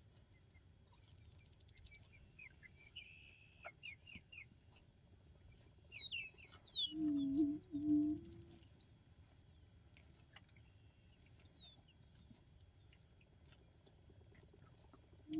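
Male Attwater's prairie-chicken booming once, about seven seconds in: a low, three-part hoot lasting about a second and a half, the courtship sound made with the inflated orange neck sacs. Small songbirds sing high buzzy trills, chirps and falling whistles around it.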